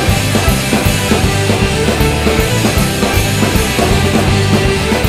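Rock music with a driving drum kit and bass, an instrumental stretch with no singing.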